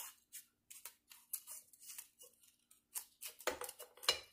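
Paper strips crinkling and rustling as they are handled and pressed between the AR-15 upper and lower receivers, with short scrapes and taps of the receivers being handled, and a louder clatter of receiver against receiver about three and a half seconds in.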